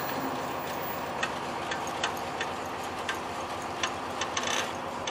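An engine running steadily, with irregular sharp clicks every half second or so, about nine in all, over the hum.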